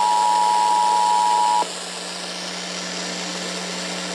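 EAS two-tone attention signal, the 853 Hz and 960 Hz tones sounding together, holding steady and then cutting off about one and a half seconds in. After it, a steady hiss and low hum of the FM broadcast carry on.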